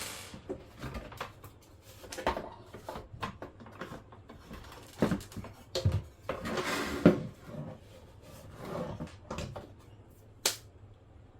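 Hard plastic housing of a jobsite radio being handled and opened up: irregular knocks, clicks and scrapes, with one sharp click near the end.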